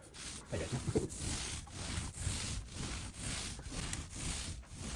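Repeated back-and-forth rubbing strokes on a drywall ceiling repair, about three a second, as a tool works over the patched expansion joint.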